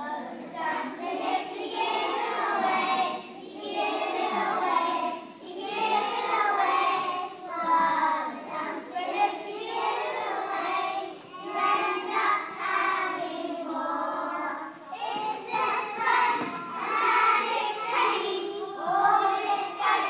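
A group of young children singing a song together, phrase after phrase with brief breaks between.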